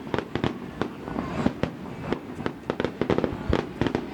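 Aerial fireworks going off in a rapid, irregular barrage: many sharp bangs and cracks in quick succession, each with a short echoing tail.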